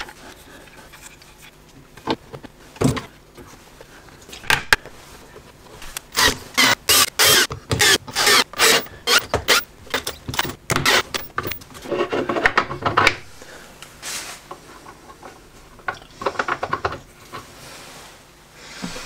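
Cordless drill-driver running in short, rapid bursts as it drives screws into a homemade belt sander's frame, with clicks and knocks of handling before and after.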